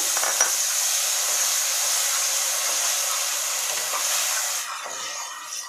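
Tomato purée sizzling in hot mustard oil and browned onion paste in a kadai while being stirred with a metal spatula; the sizzle dies down near the end.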